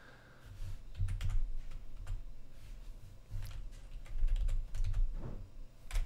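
Typing on a computer keyboard: irregular key clicks in short runs, with dull low knocks from the keys striking against the desk.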